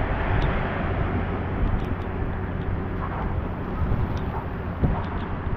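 Windy, rainy street ambience: a steady hiss with a heavy low rumble of wind buffeting the microphone.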